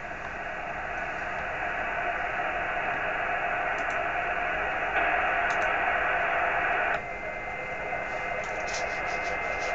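Amateur radio transceiver's speaker giving steady receiver hiss: a satellite downlink with no voice on it. The hiss gets louder for about two seconds midway, then drops, and a faint steady whistle of a carrier comes in.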